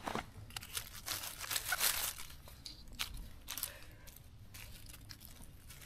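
Irregular rustling, crackling and small snaps of forest-floor litter as wild mushrooms are picked by hand.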